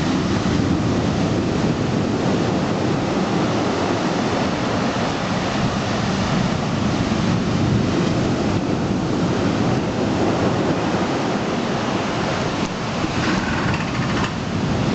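Heavy sea surf washing in continuously, with wind noise on the microphone.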